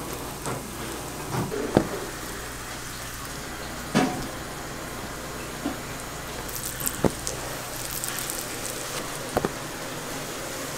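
Burger buns sizzling steadily, cut-side down in bubbling fat on a flat-top griddle, as gloved hands press them down. A few sharp knocks and clicks come from the buns and hands against the metal griddle.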